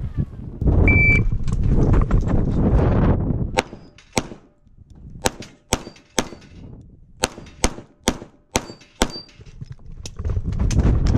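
Pistol shots fired in quick strings, about ten in five seconds, several followed by the brief ring of hit steel plates. Before and after the shots, gusts of wind buffet the microphone, and there is a short high beep about a second in.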